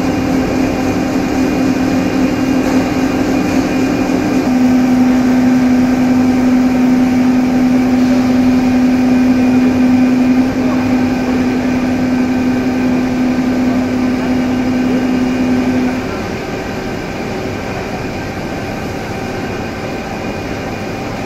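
Hot-rolling mill machinery for rebar running, with a loud steady hum that drops slightly in pitch about four seconds in and stops about two-thirds of the way through. A lower steady machine drone continues after it.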